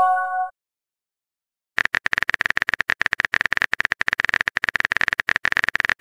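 Chat-app message chime, a short chord of steady tones, then after about a second of silence a long run of rapid keyboard-typing clicks.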